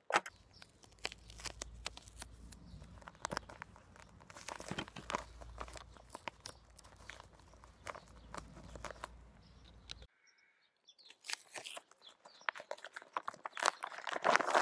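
A plastic shopping bag crinkling and crackling as it is handled and sealed with duct tape, with sticky tearing and pressing sounds from the tape. It stops briefly about ten seconds in and then goes on, with a faint low hum under the first part.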